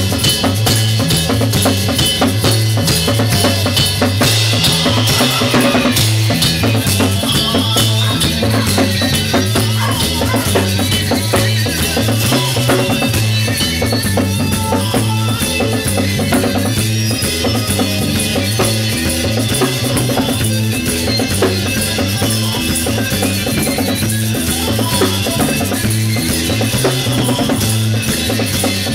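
A live band playing together: a drum kit with bass drum, snare and cymbals, an electric guitar and an electric bass, keeping a steady groove over a stepping bass line.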